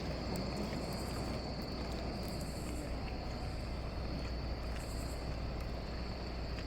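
Insects, crickets by the sound, chirring in a steady high trill over an even low rushing rumble.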